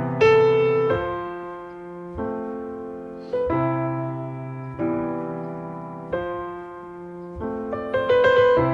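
Slow, gentle solo piano music: soft chords struck about every second and a half, each left to ring and fade.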